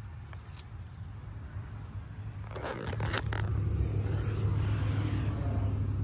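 Dry branches and twigs scraping and crackling against clothing as someone pushes through brush, in a cluster of scrapes about halfway through, over a steady low rumble that grows louder in the second half.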